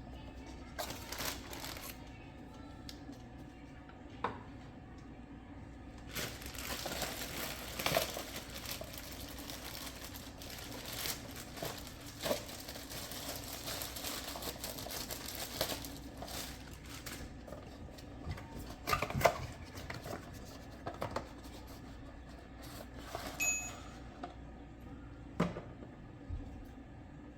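Hands swapping a cartridge oil filter element in its housing: rustling handling noise with scattered clicks and knocks, the loudest knock about two-thirds of the way through.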